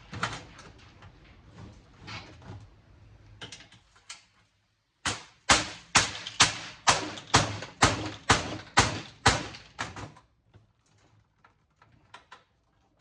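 Hammer blows driving a chisel into a cable TV box's housing to break it open: a run of about eleven sharp strikes, about two a second, starting about five seconds in, after lighter taps and scraping.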